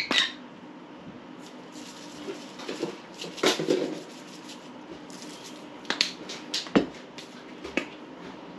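Seasoning shaker bottles shaken over a dish, with a few short bursts of shaking and sharp knocks as bottles are handled and set down on the table.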